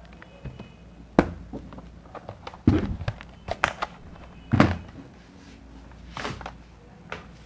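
A few dull thuds, the strongest about a second and a half apart, with lighter knocks and clicks between them.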